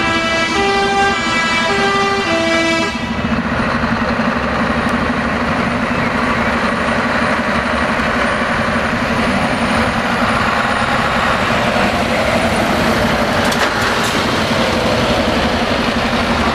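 A truck's musical air horn plays a short tune of changing notes and stops about three seconds in. Then heavy diesel engines run loud and steady as Scania tractor units drive past close by, among them an R500 with its V8.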